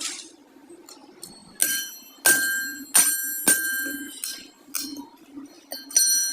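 Hammer blows on a steel part, several sharp strikes each leaving a bell-like metallic ring, over a steady low hum.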